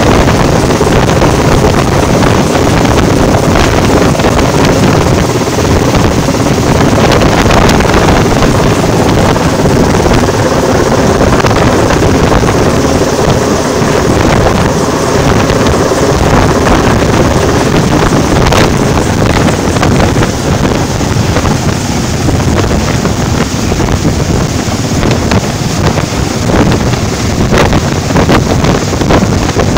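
Helicopter hovering low overhead: a loud, steady rush of rotor noise, with the rotor downwash buffeting the microphone as wind noise.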